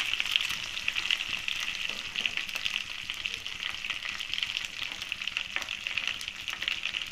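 Tempering of mustard seeds, dried red chillies, curry leaves and asafoetida sizzling in hot oil in an aluminium pot: a steady hiss full of fine crackles.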